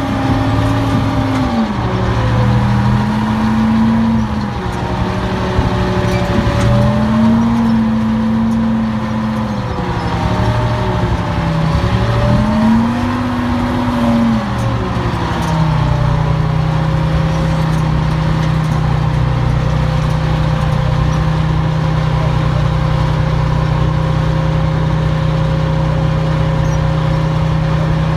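Armoured military vehicle's engine running close by, its revs rising and falling several times, then settling to a steady idle a little past halfway through.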